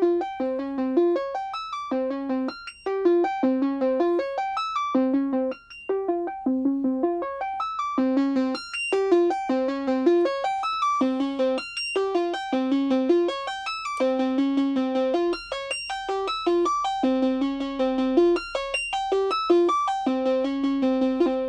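Moog Sub 37 analog synthesizer playing a repeating stepped sequence of short notes, a few a second, driven by a Korg SQ-1 step sequencer whose pitch knobs are set at random. The tone gets brighter about eight seconds in as the synth's knobs are turned.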